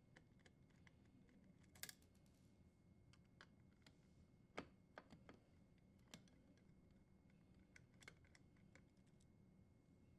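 Near silence broken by faint, scattered clicks and ticks of a Phillips screwdriver working the metal screws of a dishwasher's power terminal block.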